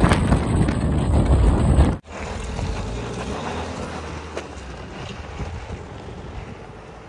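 Heavy wind rushing over the microphone of a moving car for about two seconds, cut off suddenly. Then a Tata Safari SUV's diesel engine and tyres on a dirt track, a steady lower sound that slowly fades.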